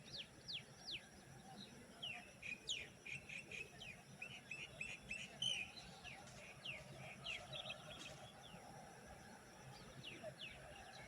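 Birds chirping faintly: quick runs of short, falling chirps, busiest from about two to eight seconds in.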